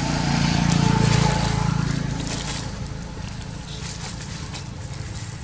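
A motor vehicle passing by: a low engine hum swells to its loudest about a second in, then fades away, with a few faint crackles afterwards.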